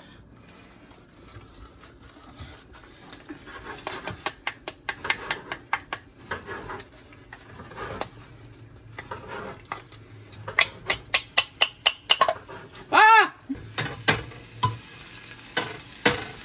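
Garlic being crushed and stirred into hot olive oil in a pan, with a light sizzle under many sharp clicks and knocks of utensils against the pan, coming in quick runs of several a second. A short squeaky pitched sound about 13 seconds in is the loudest thing.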